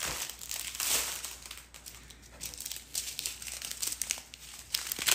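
Crinkling of plastic strips of sealed diamond-painting drill bags being handled, in irregular bursts, with a few sharper clicks near the end.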